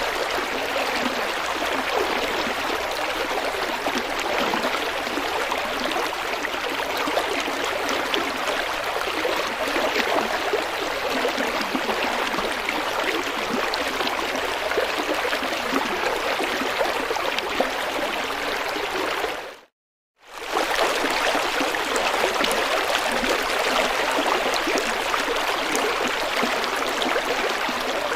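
River water flowing and rushing steadily over rocks. About two-thirds of the way through it fades out to silence for about a second, then comes straight back.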